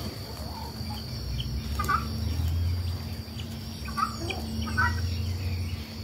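Farmyard poultry giving three short calls, about two, four and five seconds in, over a low rumble.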